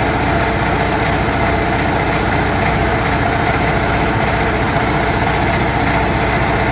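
Sea-Doo three-cylinder engine idling steadily, with no revving. This is the engine that drops its center cylinder every time it is accelerated.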